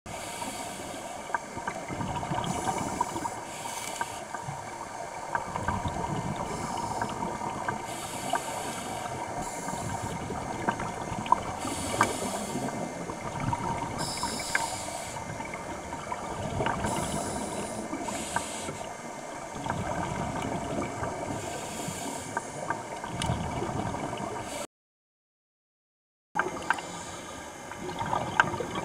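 Underwater noise: a steady crackle of many small clicks, with short bursts of hiss such as a diver's exhaled bubbles. The sound cuts out for about two seconds near the end.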